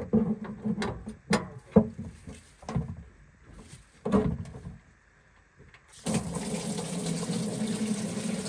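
A series of sharp knocks, then about six seconds in a sudden, steady gush of liquid as coolant pours out of the Detroit Diesel 6-71's open crankcase drain. The crankcase is full of coolant that has leaked into the engine oil.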